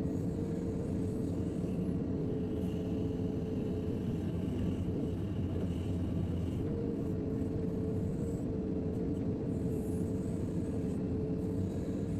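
JCB 3DX backhoe loader's diesel engine running steadily under work, with a steady whine over the low engine noise.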